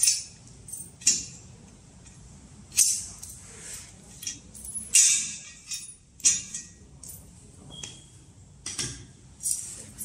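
Small steel parts clinking and tapping: bolts, washers and pins handled against a light steel frame and set down on a concrete floor during assembly. The clinks come irregularly, about a dozen of them, the loudest about three and five seconds in.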